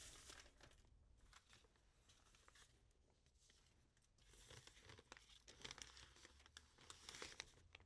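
Faint rustling and scratching of paper in short spells, busiest in the second half: pencil and paper being handled while notes are jotted in the preparation time.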